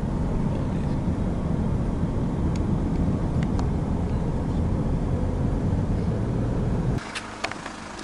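Steady road and engine rumble of a moving car, heard from inside. About seven seconds in it cuts off suddenly to a much quieter background with a few light clicks.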